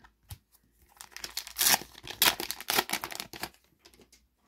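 A Panini FIFA 365 trading-card sachet being torn open and its wrapper crinkled. There is a dense run of crackling, starting about a second in and lasting some two and a half seconds.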